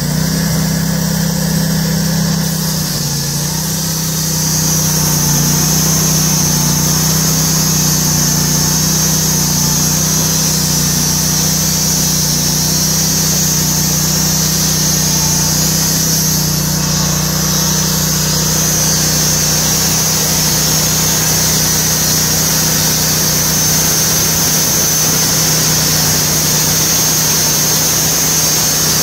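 Honda gas engine of a Norwood portable bandsaw mill running steadily while the band blade saws lengthwise through a large log, getting a little louder about five seconds in and then holding.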